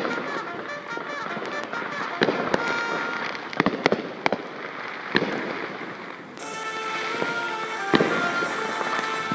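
Fireworks bursting in the sky: a string of sharp bangs, several close together in the middle and a loud one near the end, over patriotic background music.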